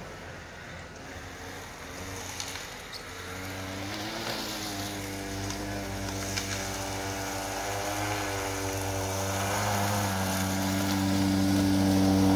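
Motorized snow scooter's small engine running at a steady pitch, growing steadily louder as the machine comes closer.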